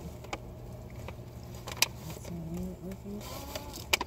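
Steady low hum of a car interior, with a few sharp clicks as food is eaten and a brief low murmured voice about halfway through.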